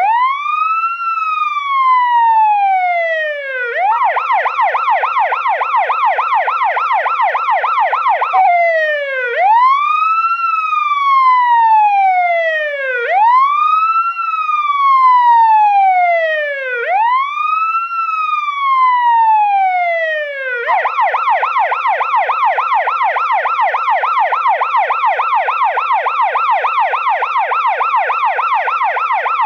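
Electronic police car siren on a stationary car, switching between modes. It starts on the wail, a pitch that rises quickly and falls slowly about every four seconds. About four seconds in it changes to the fast, warbling yelp, returns to the wail near nine seconds for three cycles, then goes back to the yelp about twenty seconds in.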